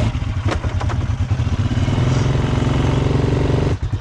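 A motor vehicle's engine running steadily and loudly, with a pulsing low rumble. A couple of sharp clicks come about half a second to a second in.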